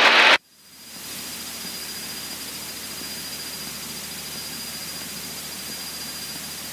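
Steady hiss of a light aircraft's intercom audio feed, fading up over the first second and then holding even, with a thin high whine and a faint low engine drone beneath.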